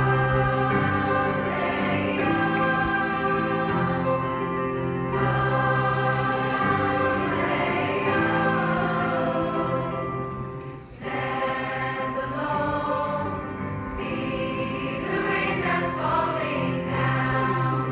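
Large mixed choir singing in held chords of many voices, with a short break between phrases about eleven seconds in before the voices come back in.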